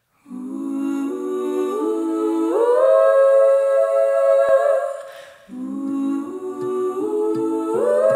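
Music: layered a cappella humming that steps upward in pitch to a held chord, fades away, then starts the same rising phrase again about five and a half seconds in. A light tapping beat comes in near the end.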